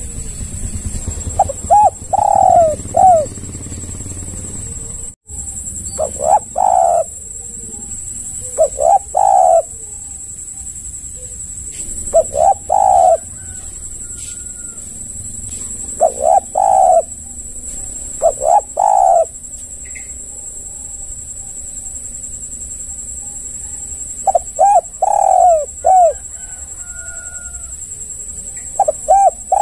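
Spotted dove cooing: short phrases of a few coos each, repeated every few seconds, about eight phrases in all. A steady high-pitched hiss runs underneath.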